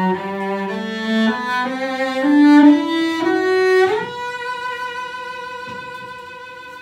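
Solo cello played with the bow: a rising run of notes over the first four seconds, then one long held high note that slowly fades away, closing the piece.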